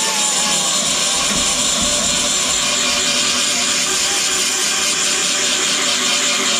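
Handheld power grinding tool running steadily under load, dressing welded steel patch repairs on a car door bottom.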